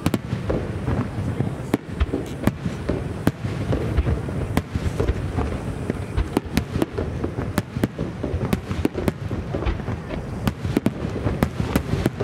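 Large starmine fireworks barrage: aerial shells bursting in quick, irregular succession, sharp bangs about two a second, coming faster in the second half, over a continuous low rumble.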